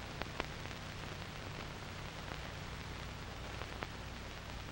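Low, steady hiss and hum of an old film soundtrack, with a few faint clicks near the start and again later on.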